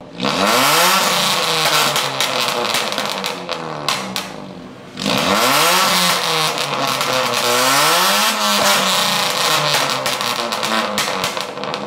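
Honda Brio's four-cylinder engine revved repeatedly through an aftermarket dual-tip racing exhaust, the note rising and falling with each blip, with a short drop about four and a half seconds in. Sharp crackles come from the tailpipes as the revs fall.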